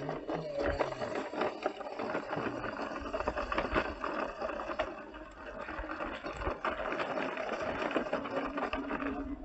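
Toy construction vehicle's small motor whirring, with a steady run of small clicks, rattling and scraping.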